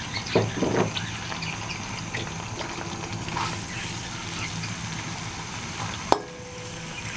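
Chopped onions sizzling in hot oil in a metal karahi while a perforated metal spoon stirs and scrapes them. About six seconds in, the spoon knocks sharply against the pan, which rings briefly.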